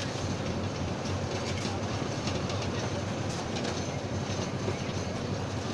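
Steady mechanical rumble with a continuous clattering noise from machinery running, holding level throughout.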